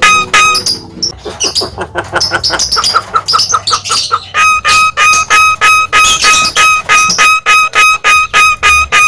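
Jalak kebo (Javan myna) singing loudly: a string of identical ringing notes about four a second, a varied chattering passage with a quick rising run of notes, then the repeated ringing notes again from about halfway through.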